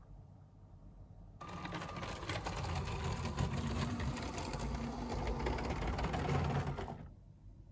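Motorised LEGO train (Powered Up train motor) running along plastic track, a steady motor whine mixed with rapid clicking and rattling. It starts about a second and a half in and cuts off shortly before the end.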